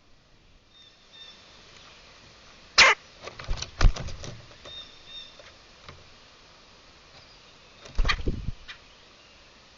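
Small birds chirping faintly, broken by a few sharp knocks about three to four seconds in and a short thump near the end.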